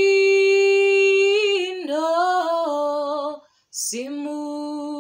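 A woman singing a worship song unaccompanied, in long held notes, with a short pause for breath about three and a half seconds in.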